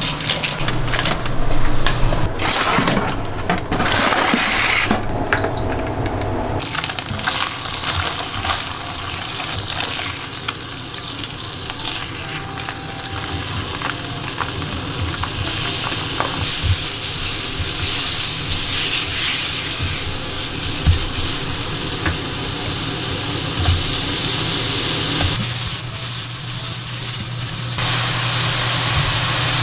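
Minced pork sizzling as it fries in a pan: a steady hiss with scattered clicks from utensils, after several seconds of handling clatter at the start.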